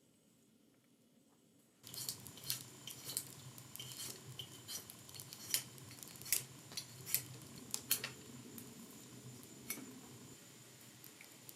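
Metal cooking utensils clicking and clinking in quick, irregular taps, starting suddenly about two seconds in and thinning out near the end.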